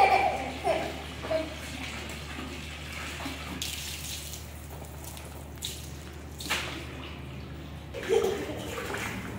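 Water from a garden hose pouring steadily into a shallow paddling pool, splashing on the water surface and briefly louder a few times. A small child laughs in the first second or so and his voice is heard again near the end.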